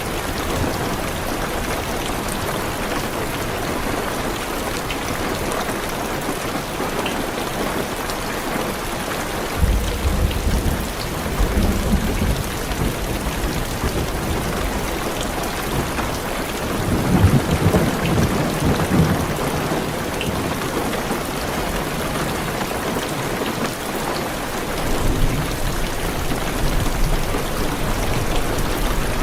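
Heavy rain falling steadily on a car's roof and windows, with low rolls of thunder, one about a third of the way in, a stronger one around the middle, and a fainter one near the end.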